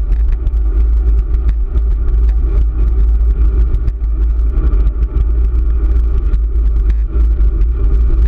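Wind rumbling on the microphone of a handlebar camera on a moving bicycle, steady and loud, with scattered small knocks and rattles from the cracked road surface.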